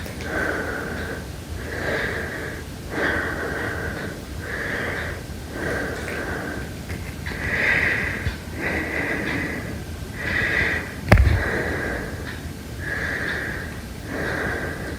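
Heavy breathing in a steady rhythm of quick breaths in and out, each with a high, whistling wheeze. A single sharp knock sounds once, about eleven seconds in.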